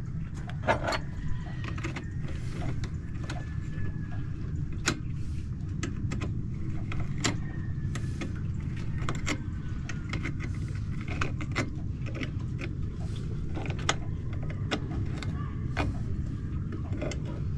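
Metal hand tools and small engine parts clicking and clinking at irregular moments as bolts and washers are fitted on an engine, over a steady low rumble.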